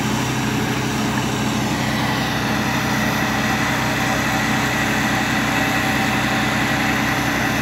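An engine running steadily under the gushing and splashing of water spouting from a deep tube well's pipe during well development.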